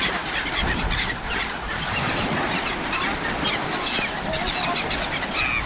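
A flock of seabirds calling, many short overlapping cries, over a steady wash of sea surf and wind.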